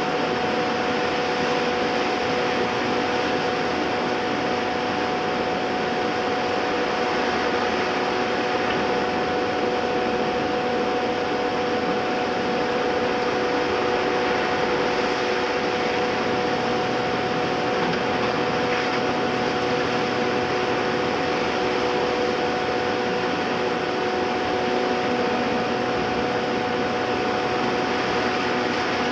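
Caterpillar hydraulic excavator running steadily under work, its engine and hydraulics giving a constant hiss with a steady whine of several held tones.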